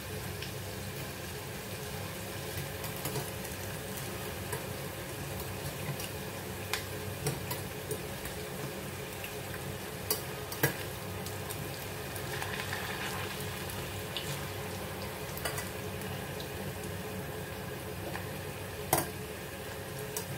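Potato pieces frying in hot oil in a pan, a steady sizzle with scattered sharp clicks and pops.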